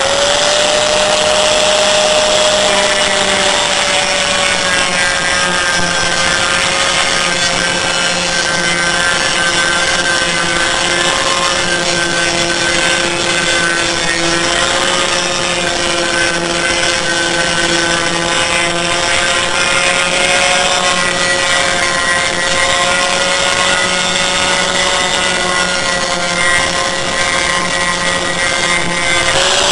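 Angle grinder with a thin metal cutting disc running at a steady high whine as it cuts along a circle through an aluminium panel, with a rough cutting hiss over the motor. It comes up to speed right at the start.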